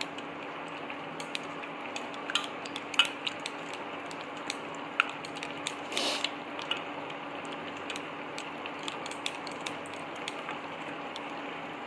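Hand mixing and squeezing curd with gram flour in a steel bowl: scattered small clicks and taps against the steel, one a little louder about six seconds in, over a steady background hum.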